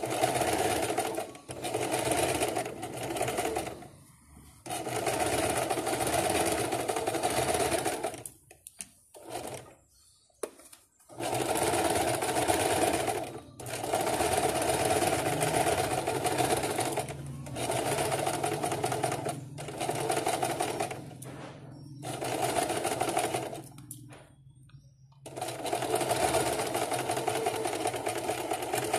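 Electric domestic sewing machine stitching a seam through fabric, running in short spurts of one to four seconds and stopping briefly between them, about ten runs in all.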